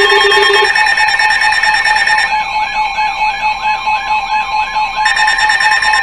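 Emergency alert attention tones from weather-radio and FM-radio receivers sounding over each other: several steady electronic tones held together, the lowest one dropping out about a second in. A quick run of rising chirps, about three a second, joins in from about two to five seconds in. The tones herald a severe thunderstorm warning.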